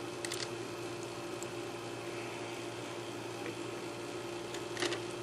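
Steady low hum and hiss of background noise, with a few faint clicks of plastic Lego pieces being handled just after the start and again near the end.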